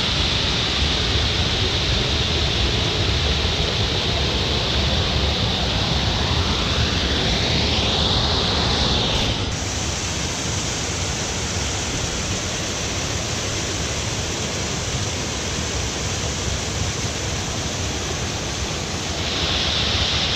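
Waterfall rushing steadily over rock ledges, a loud, even hiss of falling and churning water. About halfway through the sound changes character and drops slightly in level.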